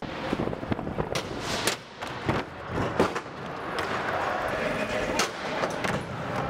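Aggressive inline skates rolling on a concrete floor, with repeated sharp clacks of skates landing and striking a ledge; the loudest is a single crack about three seconds in. Near the end a skate grinds along the edge of a box.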